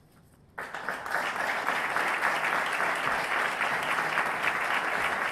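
Audience applauding: the clapping breaks out suddenly about half a second in and carries on steadily.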